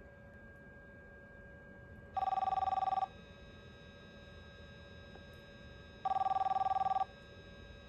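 DiamondTel Model 92 car phone ringing for an incoming call: two rings about four seconds apart, each a warbling two-tone trill just under a second long.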